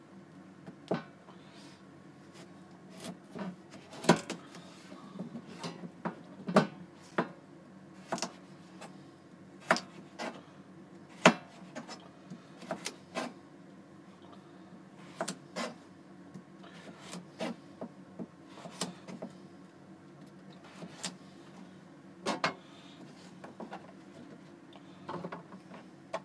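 Kitchen knife chopping a carrot into chunks on a plastic cutting board: irregular sharp knocks of the blade hitting the board, about one every second or so, some in quick pairs, over a low steady hum.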